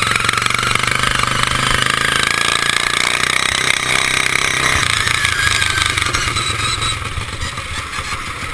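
Racing riding lawn mower's engine running hard as the mower drives fast over rough dirt and grass, its note shifting about five seconds in.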